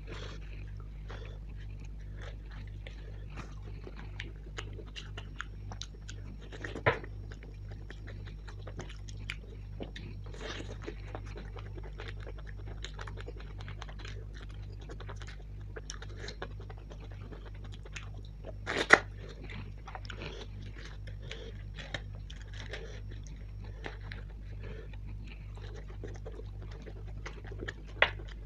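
Close-up eating sounds: a person biting and chewing curry and puri with wet mouth clicks and smacks, steadily throughout. Three sharp knocks stand out, the loudest about two-thirds of the way through.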